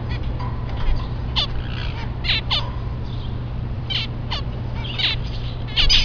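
Caged zebra finches calling: short, quick-falling calls, one every second or so, from several birds. A steady low hum runs underneath.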